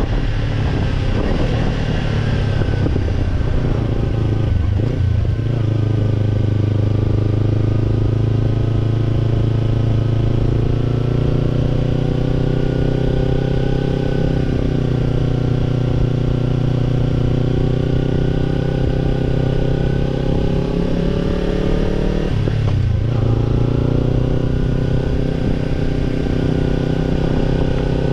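Kawasaki Ninja 250 parallel-twin engine running through a BEET NASSERT Evolution Type II titanium slip-on muffler while riding. The engine note falls over the first few seconds, then runs fairly steady, with two brief dips in pitch about five and about 23 seconds in.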